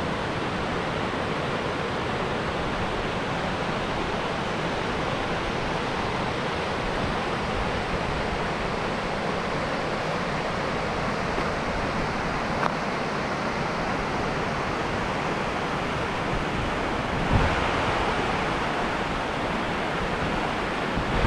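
Steady rush of spring water cascading over rocks in whitewater rapids, Greer Spring's outflow heard from the slope above.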